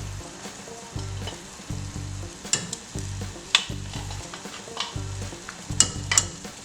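Meat, spices and tomato paste sizzling in a pan while a spoon stirs them, with several sharp clicks and scrapes of the spoon against the pan.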